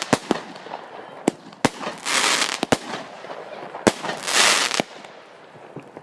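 Fireworks going off: a string of sharp bangs, with two longer crackling hisses about two and four seconds in.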